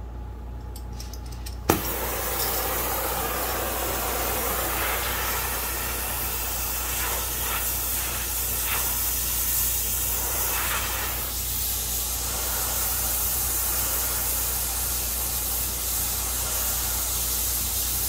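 An oxy-acetylene cutting torch is lit with a sharp pop about two seconds in. Its flame then hisses steadily while it heats the steel frame horn.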